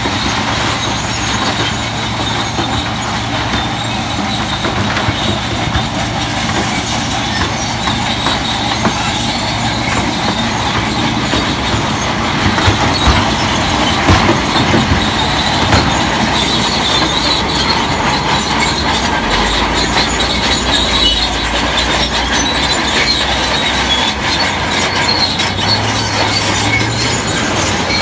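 Crawler bulldozer at work: its diesel engine drones steadily while the steel tracks squeal and clank.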